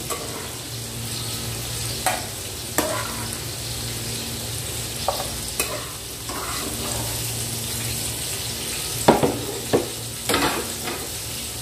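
Potatoes frying in hot oil with a steady sizzle, broken by several sharp clinks and scrapes of a utensil against the pan, most of them in a cluster near the end.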